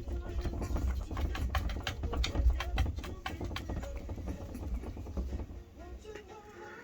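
A quick run of sharp knocks and scuffs over a low rumble, as of cats pawing at and bumping against a partly open door. The knocks are thickest in the first few seconds and fade out about a second before the end.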